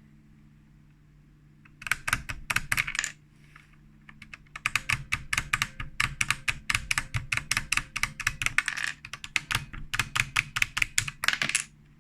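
Typing on a HyperX Alloy Elite RGB mechanical keyboard with Cherry MX Brown switches: a short burst of rapid keystrokes, then after a pause a longer run of fast keystrokes.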